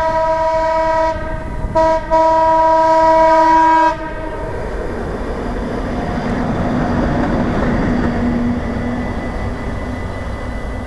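NS 1200-class electric locomotive sounding its horn twice, the second blast about two seconds long, then passing with a rumble of wheels and traction equipment that swells and slowly fades.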